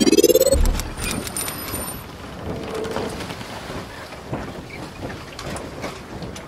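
Logo-intro sound effect: a rising sweep that ends about half a second in on a deep boom, followed by a steady crackling hiss with scattered clicks.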